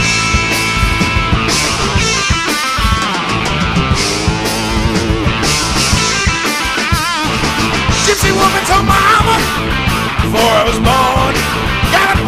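Blues-rock power trio playing an instrumental passage: electric lead guitar over bass guitar and drums. Bent notes with vibrato come in about seven seconds in and again near the end.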